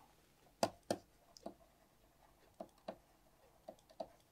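Faint, irregular clicks of a stylus tip tapping and writing on a tablet screen, about seven light taps in four seconds.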